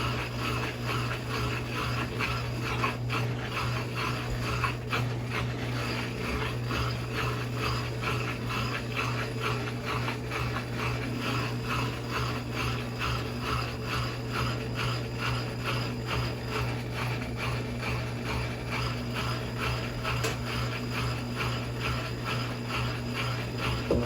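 Brastemp Inteligent 7 kg (BWF24A) washing machine in its spin ramp stage before the final spin: a steady motor hum with a fast, regular pulsing as the drum turns.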